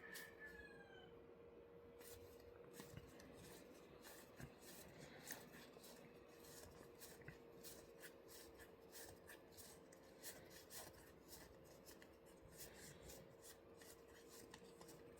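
Faint handling of playing cards and packaging: soft rubbing and scattered small ticks, over a steady low hum. A brief falling squeak comes right at the start.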